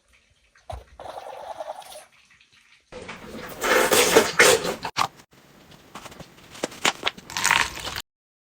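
A Chihuahua sneezing in several bouts: a short one about a second in, a louder stretch from about three seconds, then quieter sneezes with sharp spikes until the sound cuts off abruptly near the end.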